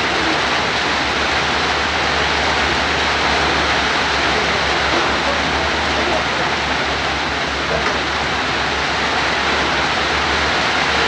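Heavy monsoon downpour: a loud, steady hiss of torrential rain.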